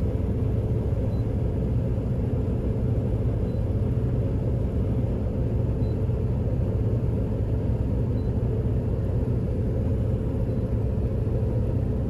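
Large farm machine running steadily at constant load, a low even rumble with a faint steady hum above it and a faint tick about every two and a half seconds.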